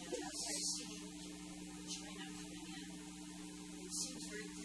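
Steady electrical mains hum over hiss, with two brief soft rustles, one shortly after the start and one about four seconds in.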